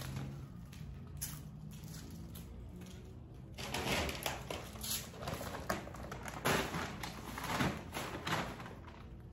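Irregular rustling and crinkling as a brown paper yard-waste bag is handled and opened, starting a few seconds in after a quieter stretch with a faint low hum.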